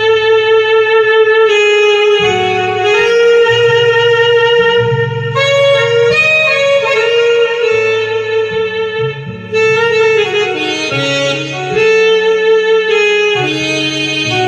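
Electronic arranger keyboard's saxophone voice playing a melody of held and stepping notes over a low accompaniment.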